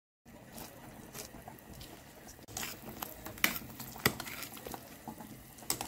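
Potato chunks simmering in tomato sauce in a pot, with a utensil stirring and clinking against the pot a few times, sharpest about three and a half and four seconds in.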